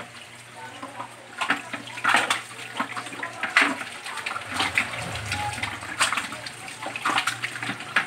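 A carp-like fish being scaled and rubbed clean in water in a stainless steel sink: irregular scraping and splashing strokes.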